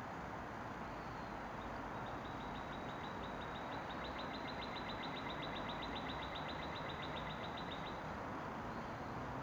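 Outdoor ambience: a steady background hiss, with a high, even trill of rapid pulses, about seven a second, starting about two seconds in and stopping a little before the end.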